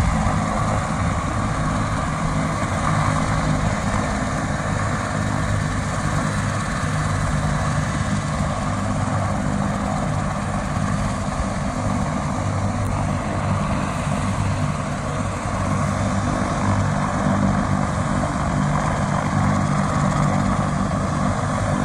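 Helicopter idling on the ground after landing, its engine running and rotors turning with a steady, even beat.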